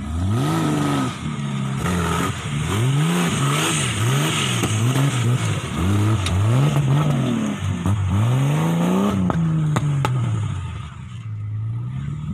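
Modified off-road 4x4's engine revving up and down over and over, about once a second, as it is driven over rough dirt; the sound drops away near the end.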